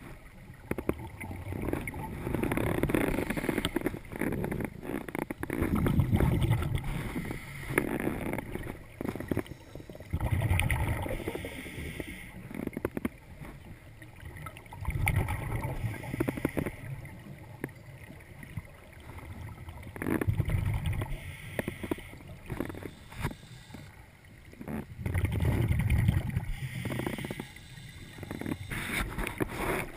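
Scuba diver's breathing underwater: exhaled bubbles from the regulator rush past the microphone in swells every four to five seconds, with quieter stretches between breaths.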